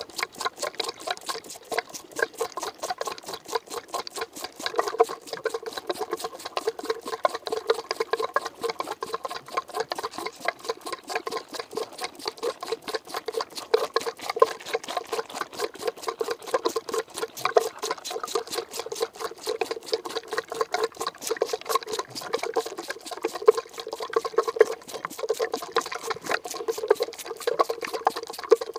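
French Alpine kid goat sucking milk from a rubber bottle nipple, heard right at the bottle: a fast, steady run of wet sucking clicks, several a second.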